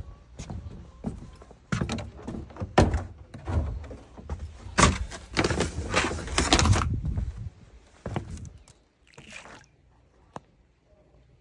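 Irregular knocks and rustling handling noises, densest about five to seven seconds in, then dying away to a single faint click near the end.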